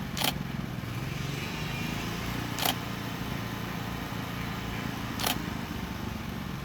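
A steady low mechanical hum, with a short sharp tick about every two and a half seconds.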